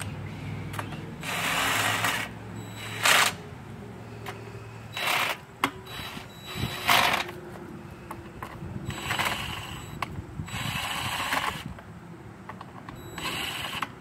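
Cordless drill spinning in a series of short bursts, about seven, driving in the bolts that hold the engine cover on the pressure washer.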